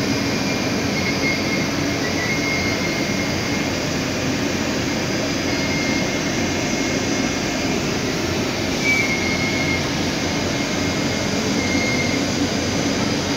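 Steady rushing hum of a building's ventilation, unchanging throughout.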